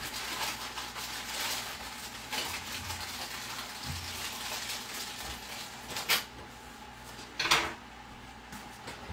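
Wiping and rubbing while cleaning beneath the lifted top of an electric coil-burner range, with two sharp clatters about six and seven and a half seconds in.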